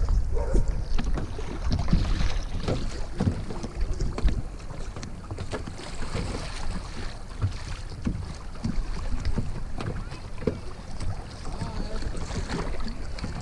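Fast creek water rushing and splashing around a kayak, with irregular paddle splashes and wind rumbling on the microphone.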